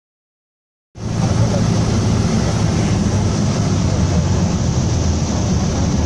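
Light airplane's engine and propeller droning steadily, heard from inside the cockpit with a loud rush of air around the cabin, during a landing in strong, gusty wind. The sound starts suddenly about a second in, after a silent title card.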